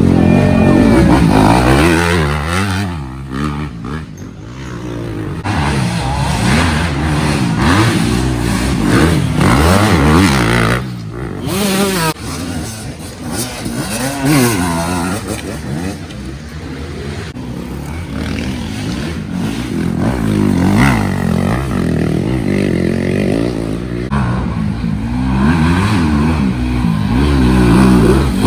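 Dirt bike engines revving hard off-road, their pitch climbing and falling again and again as the throttle is worked.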